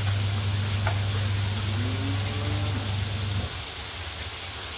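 Oil sizzling in a wok on a gas stove as food fries, under a steady low hum that stops about three and a half seconds in.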